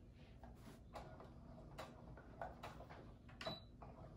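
Brother sewing machine stitching slowly through cotton fabric, giving faint, irregular ticks and clicks a few times a second.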